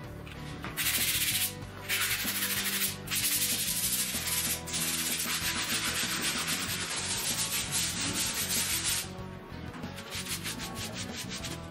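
Sanding sponge rubbed back and forth by hand along a wooden board, a loud even hiss with a few short pauses. Near the end it gives way to fainter, quicker rubbing strokes of a cloth wiping the board. Background music plays underneath.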